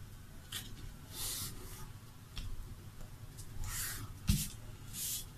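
A sheet of paper rustling and crinkling as it is folded and creased by hand, in several short bursts, with a soft thump against the table about four seconds in.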